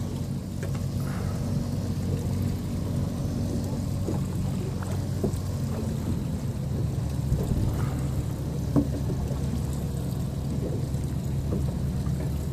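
A boat's engine idling with a steady low hum, with water splashing against the hull.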